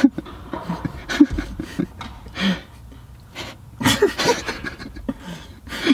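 Men laughing in short breathy bursts, with brief bits of voice between them.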